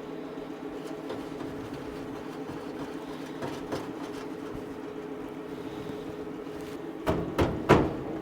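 Steady machine hum in the shop, with a few faint clicks and then three sharp metallic knocks near the end, as flange nuts are fitted and tightened on a truck's fan shroud.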